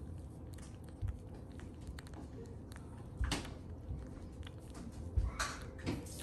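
Newborn French bulldog puppies sucking and mouthing at gloved fingers: soft wet smacking clicks throughout, with two louder smacks about three and six seconds in and low bumps from handling. A weak puppy is being encouraged to suckle on a finger.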